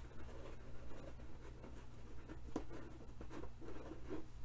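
Wooden popsicle stick scraping and rubbing against a fabric lampshade as glue is worked into the seam, in short, irregular strokes with a few sharper clicks.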